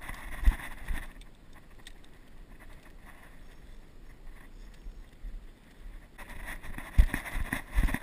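Wind rumbling on the microphone of a body-worn action camera, with low handling bumps: two near the start and a cluster near the end.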